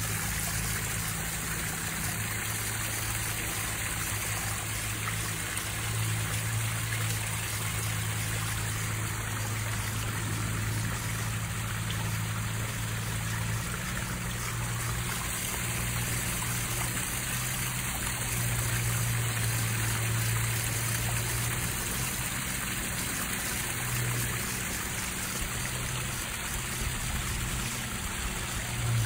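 Water from a small backyard pond waterfall splashing and trickling steadily into the koi pond, with a low drone that swells and fades underneath.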